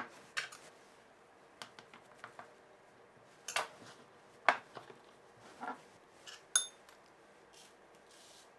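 Metal teaspoon tapping and scraping against a small glass jar and a mixing bowl while sesame seeds are spooned out: a string of separate light knocks and clinks, one of them ringing briefly about six and a half seconds in.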